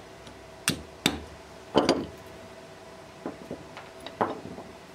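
Irregular sharp metallic knocks and clinks from old steel clamp parts being handled and knocked apart on a wooden slab, about eight in all, the loudest cluster about two seconds in, over a faint steady hum.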